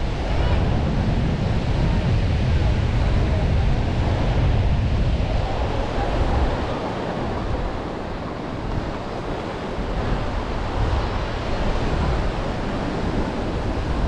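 Sea surf washing onto a beach, mixed with wind rumbling on the microphone; the low wind rumble eases for a few seconds midway, then returns.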